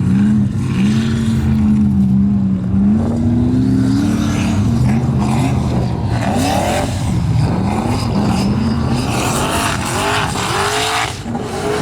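Formula offroad hill-climb car's engine revving hard, its pitch climbing and then rising and falling again and again as the throttle is worked. From about six seconds in, a loud rushing noise joins it.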